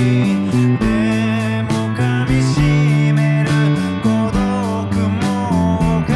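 Rock band recording with a singer, drums and guitars, and an electric bass played along with it, its notes changing underneath the vocal line.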